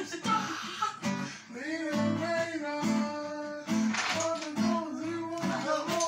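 Acoustic guitar being strummed, with a voice singing along.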